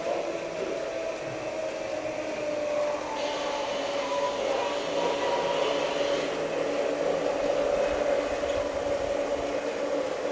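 Steady whirring hum of a small electric motor on an LGB model railway layout, with a thin whine held at one pitch and a brief extra hiss from about three to six seconds in.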